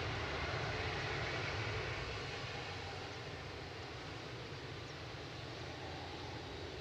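Jet engine noise from a landing Airbus A380's four engines: a steady rushing noise that slowly grows quieter from about two and a half seconds in.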